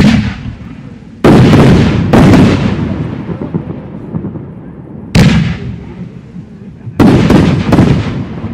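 Professional aerial firework shells bursting: a string of loud bangs, each trailing off in a long echoing rumble. One comes at the start, two more about a second apart, another about five seconds in, and a quick cluster of three near the end.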